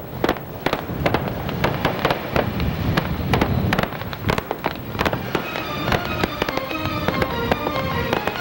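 Fireworks bursting and crackling: a rapid, uneven string of sharp pops and bangs over a low rumble. Music comes in under them about halfway through.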